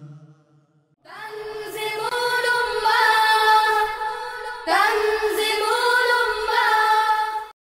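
The last sung note of a boys' group nasheed fades out, then after a short gap a sung vocal jingle begins: two long sung phrases, the second starting a little past halfway. It cuts off abruptly.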